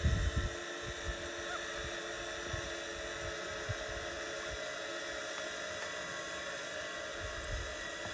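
A steady mechanical hum made of several steady tones, with wind buffeting the microphone in low gusts, most strongly in the first half-second.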